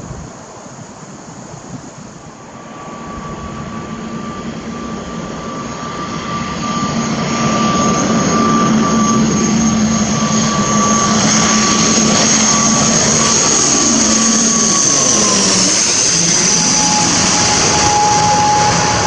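Mandarin Airlines ATR 72-600 turboprop on final approach, flying low overhead with its Pratt & Whitney PW127 engines and six-blade propellers running. The drone and whine build up over several seconds to a loud, steady level. Both tones drop in pitch around three-quarters of the way through as the aircraft passes overhead.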